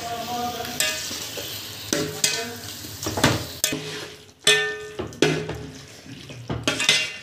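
Raw chicken pieces being stirred through a thick fried masala in a stainless steel vessel: wet scraping against the metal, with a few sharp clatters.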